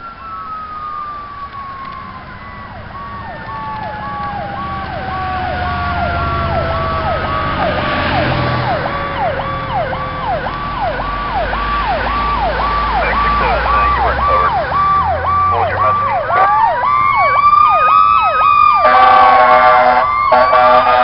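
Fire apparatus sirens growing louder as the trucks approach: an electronic siren yelping rapidly, and a second siren winding slowly down in pitch, then winding back up near the end. Air horns sound in the last couple of seconds, over a low diesel engine rumble.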